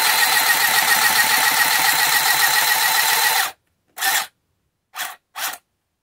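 Battery-powered Handy Stitch handheld sewing machine running steadily as it stitches through cardstock, then cutting off sharply about three and a half seconds in. It is then run in three short bursts to edge the stitching forward.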